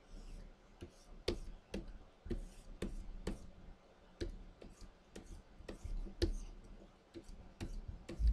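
Irregular sharp clicks and taps, two or three a second, from a stylus pen tapping and stroking on the glass of a Wacom Cintiq pen display.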